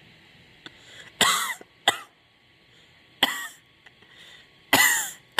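A woman's bad chest cough: five harsh coughs, some coming in quick pairs.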